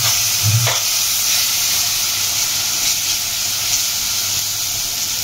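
Tomato and gram-flour gravy sizzling steadily in a stainless steel pan over a gas flame, with a nylon spatula stirring and scraping through it.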